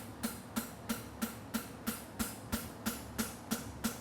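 Hammer blows on a concave steel horseshoe on an anvil, in a steady rhythm of about three strikes a second, each with a short metallic ring, as the shoe's toe is shaped.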